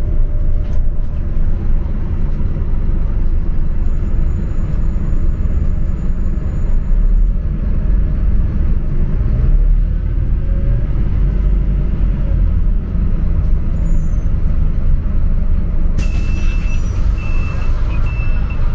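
Steady low rumble of a city bus running, heard from inside the cabin, with four short high-pitched beeps about three-quarters of the way through.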